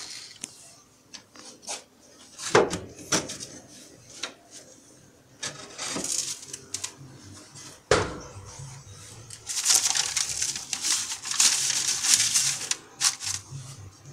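Handling noise inside a wooden pigeon nest box: a few sharp knocks against the wood, then a few seconds of rustling from the newspaper lining, starting about ten seconds in.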